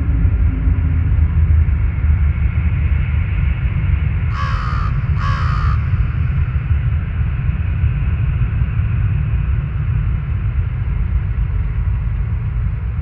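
Two crow caws about a second apart, over a steady deep rumble.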